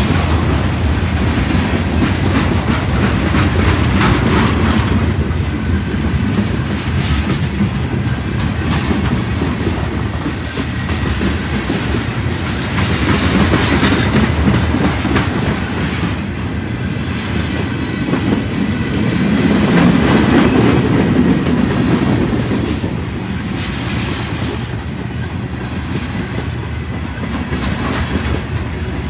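Freight train of boxcars and covered hopper cars rolling past close by: a steady rumble of steel wheels on the rails, with repeated clicks as the wheels pass, swelling and easing slightly as the cars go by.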